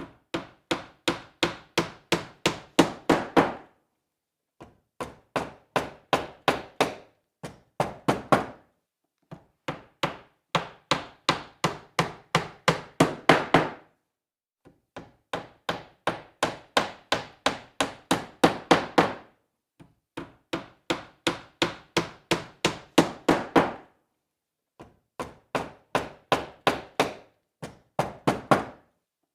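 A hammer driving a nail into wood: quick sharp blows, about four a second, in runs of a few seconds each separated by short pauses, the blows growing louder within each run.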